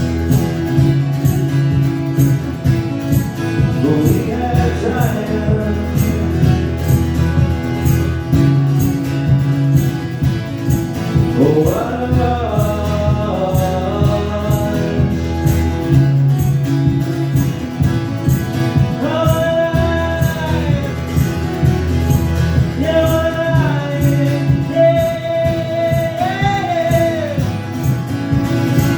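A live song: a steady instrumental accompaniment with a man singing long held notes at intervals, without clear words.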